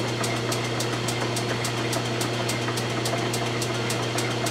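Logan metal lathe running steadily with a rifle barrel spinning in the chuck: an even hum with a light tick repeating about five times a second.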